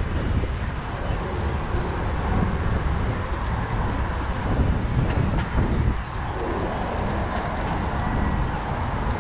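Wind noise on the microphone of a GoPro mounted on a moving bicycle: a steady low rumble.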